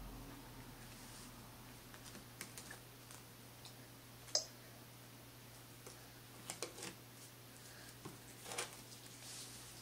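Faint, scattered small clicks and taps from a baby eating and handling a slice of toast at a plastic high-chair tray, the sharpest click about four seconds in and a few more in the second half, over a steady low hum.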